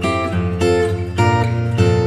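Background music: acoustic guitar playing strummed and plucked chords.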